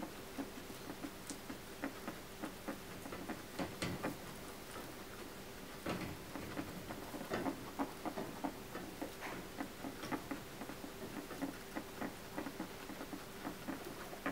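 A guinea pig with dental malocclusion chewing and crunching dry food pellets: a rapid, irregular run of small crisp clicks, over a faint steady hum.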